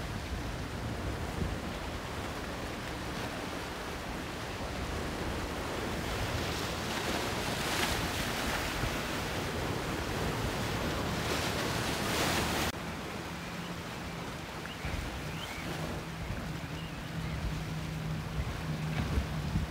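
Rough inlet waves churning and breaking, with wind buffeting the microphone; the water noise swells louder in the middle, then drops suddenly about two-thirds in. After that a boat engine's low drone runs under the surf.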